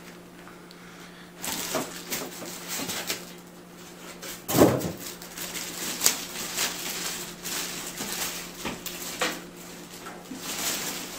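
Rustling and scattered light knocks of a PC case and its packaging being handled, with a louder knock about four and a half seconds in, over a faint steady hum.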